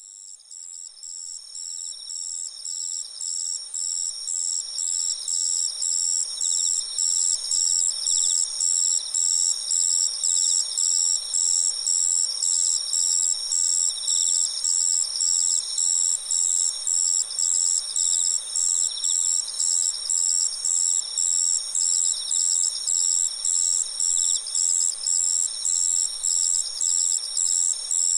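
Autumn insects chorusing, several crickets at once: a high, evenly pulsed chirping repeating about twice a second over continuous high trills. The uploader wonders whether one of them is a madarasuzu (striped ground cricket). The chorus fades in over the first several seconds, then holds steady.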